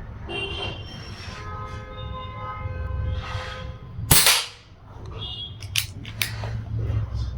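A single shot from a Precihole PX100 Achilles PCP air rifle: one sharp crack about four seconds in, the loudest sound, dying away within half a second. It is preceded by a steady pitched tone of several notes lasting a second or two and followed by a couple of quieter clicks.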